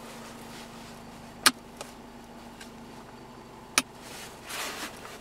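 Sharp clicks from the heated-seat rocker switches on a Mitsubishi Colt's centre console: two plain ones about two seconds apart and a faint one just after the first. Under them is the steady hum of the car's engine idling, heard from inside the cabin.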